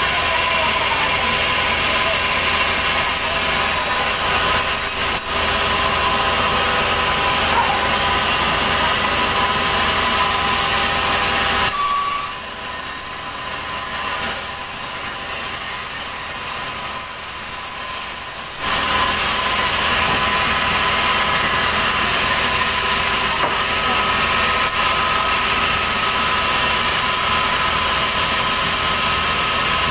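Sawmill band saw machinery running steadily: a constant mechanical drone with a thin high whine. About twelve seconds in, the sound drops and dulls for some six seconds, then returns at full level.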